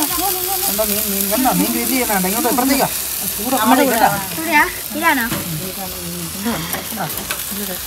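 Marinated fish fillets and sausages sizzling over a charcoal barbecue grill, a steady hiss, with people's voices talking over it.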